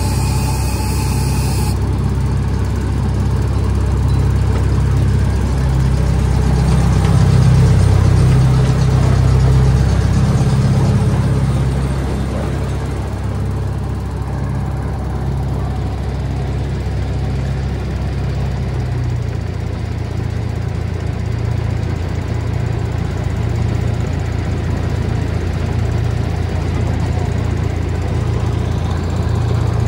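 Miniature ride train running along its track, its locomotive's engine throbbing low and steadily. It runs louder for a few seconds in the middle, then eases a little for the rest.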